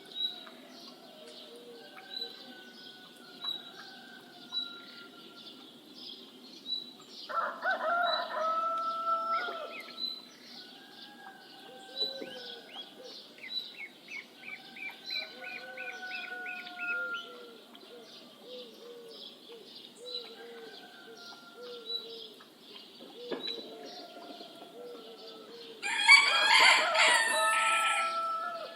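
Morning farmyard ambience. A rooster crows twice, about seven seconds in and again near the end, the second crow louder. Under it there is continuous songbird chirping with a fast trill in the middle and repeated soft low clucks.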